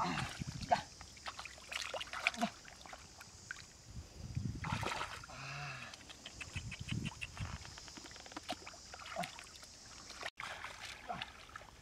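Hands and flopping catfish splashing and slapping in shallow muddy water: a run of irregular splashes and squelches as the fish are grabbed by hand.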